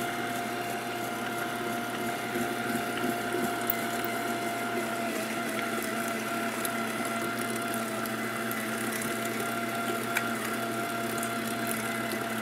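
Electric meat grinder running steadily, its motor humming with a steady whine as it grinds near-frozen pork shoulder through a coarse 8 mm plate, with a few faint ticks.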